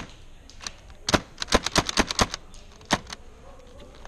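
Airsoft gun shots as sharp clicks: a rapid irregular string of about ten in just over a second, with single shots before and after.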